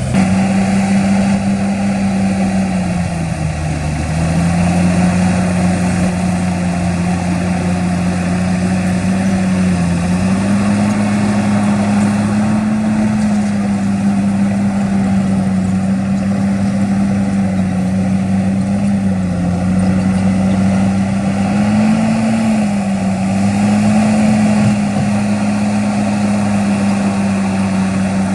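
Heavy diesel engine of earthmoving machinery running steadily, its pitch sagging briefly a few times and rising once for a moment.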